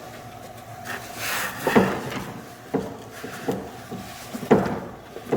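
Cushion pads being slid into a hand-built cart, a rubbing slide about a second in followed by several dull knocks against the cart, the loudest about four and a half seconds in.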